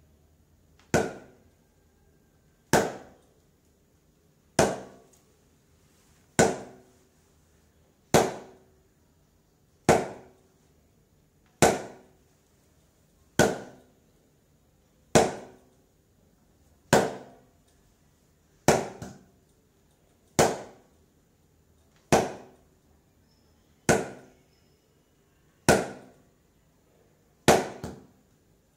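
Cricket bat striking a hanging ball again and again in a steady rhythm, one sharp knock about every 1.8 seconds, sometimes followed by a smaller second knock.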